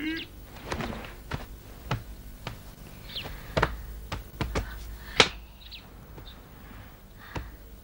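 Footsteps on a hard floor: a string of short knocks about every half second, with one sharper, louder knock about five seconds in.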